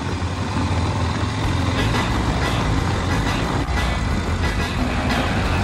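Steady traffic and road noise with a motorcycle engine running as it rides along.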